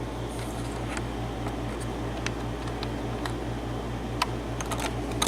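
Small lock pins from a gutted cylinder lock clicking lightly as they are handled on a work surface, a few scattered taps with a sharper one about four seconds in and a quick cluster near the end, over a steady low hum.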